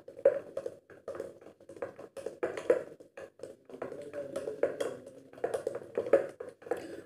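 Metal spoon stirring thick chocolate cake batter in a bowl, with many quick light taps and scrapes of the spoon against the bowl's side.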